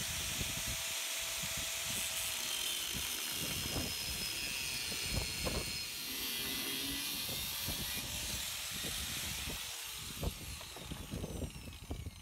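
Angle grinder with a thin cutting disc running and cutting through rusty chassis steel, a steady high hiss over the motor's whine. It winds down near the end as the cut finishes.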